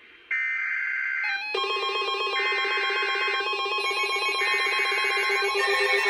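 Emergency Alert System SAME header: three bursts of shrill digital data tone, each about a second long with about a second between them. Music-like steady tones come in under the bursts about one and a half seconds in.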